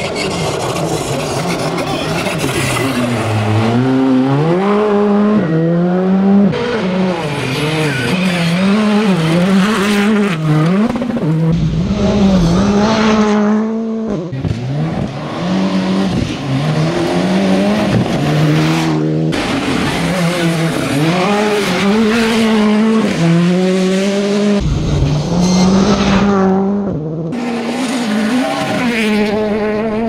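Rally cars at full throttle on gravel, engines revving hard, the pitch climbing and then dropping again and again through gear changes and braking for corners.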